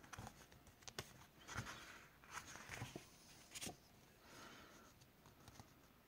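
Faint paper handling: sticker sheets and planner pages rustling, with a few light clicks and taps as the hand moves over them.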